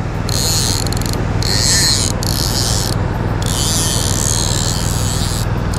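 Click-and-pawl drag of a Sage Click fly reel buzzing in several spurts with short breaks as a hooked trout runs and pulls line off the reel.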